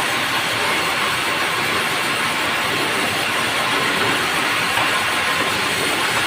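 Semi-automatic sawmill saw cutting a merbau log: a steady, loud rushing noise of blade and machine that holds without pauses.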